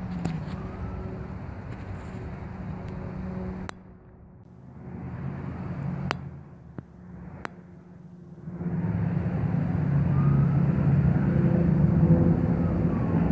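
Distant engine rumble with a low hum. It dips twice and swells louder in the last few seconds, and a few sharp clicks cut through it.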